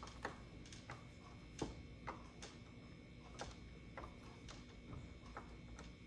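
Hand screwdriver turning a small machine screw into a smart lock's metal interior faceplate: faint, irregular clicks as the bit works in the screw head.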